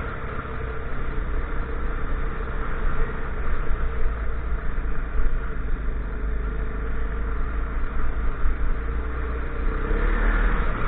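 Dirt bike engine running while riding at speed on a gravel track, with heavy wind noise on the microphone. The engine note rises and falls near the end.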